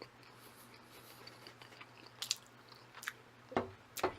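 Close-miked chewing of jjajang instant noodles: quiet mouth sounds with a few short wet smacks, about two seconds in and twice near the end.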